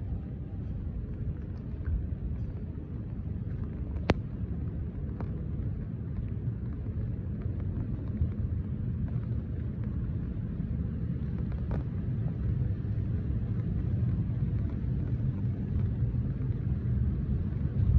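Steady low outdoor rumble picked up by a handheld phone's microphone during a street walk. A few sharp clicks cut through it, the loudest about four seconds in.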